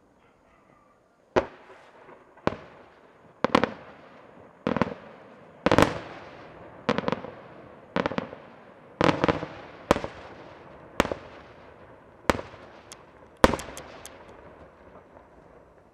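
Aerial firework shells bursting in a steady series, about one loud bang a second, each followed by a rolling echo that fades. A quick cluster of cracks comes near the end.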